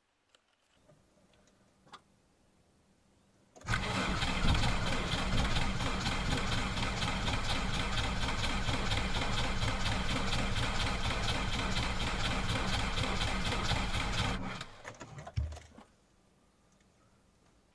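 Starter motor cranking a Volkswagen diesel engine in deep frost for about ten seconds, the engine turning over in an even rhythm of about five compression pulses a second without catching. The cranking cuts off with a few uneven last bursts. A couple of faint clicks come before it.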